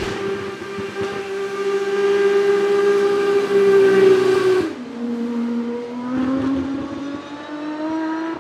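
Aston Martin Vulcan AMR Pro's naturally aspirated 7.0-litre V12 at high revs, a steady high engine note that is loudest as the car passes. After an abrupt cut a little past halfway, the engine note starts lower and climbs steadily as the car accelerates away.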